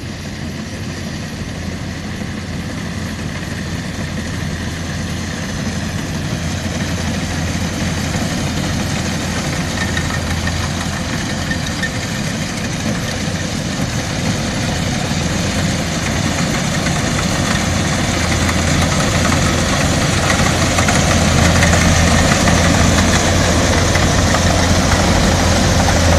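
Rice combine harvester's engine running steadily with a deep hum and machinery clatter, growing gradually louder as it comes closer.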